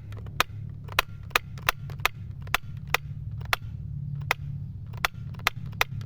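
A run of short, sharp clicks, unevenly spaced at about two a second, over a low steady hum.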